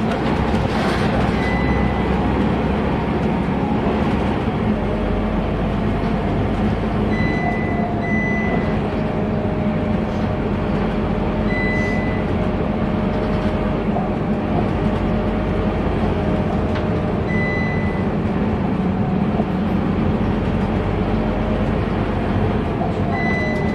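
Scania K230UB bus's five-cylinder diesel engine and ZF Ecomat automatic gearbox running at a steady cruise, heard from inside the passenger cabin with road noise and a faint steady whine. Short high beeps sound several times.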